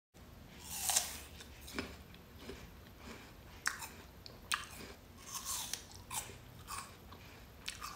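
Someone biting and chewing crunchy food close to the microphone, with a crisp crunch about once a second.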